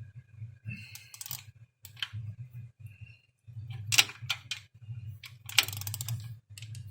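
A wrench clinking and clicking against the rear axle's bolts in irregular sharp metallic knocks as they are checked for tightness, over a steady low hum.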